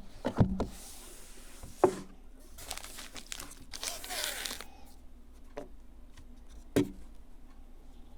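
Packaging being handled during an unboxing: plastic or paper wrapping crinkles and tears for a couple of seconds in the middle. Several sharp knocks from the box and its contents being handled: two near the start, one at about two seconds and one near the end.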